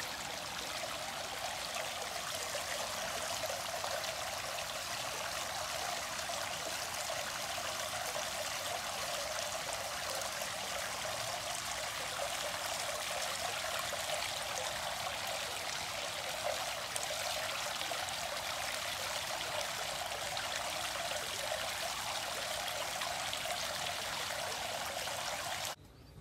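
Hot spring water welling up and splashing steadily over a round fountain spout into an open-air bath. It cuts off suddenly near the end.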